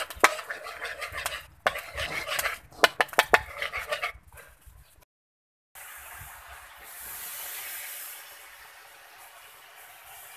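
Metal spoon scraping and clicking against a wok as sugar melts into caramel, with sizzling. About five seconds in, after a short break, a steady hiss as plain water is added to the hot caramel; it swells, then settles into a boil.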